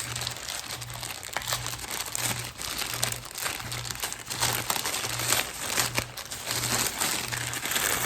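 Plastic packaging crinkling and rustling as the vacuum's accessories are handled and unwrapped, many small crackles running on without a break.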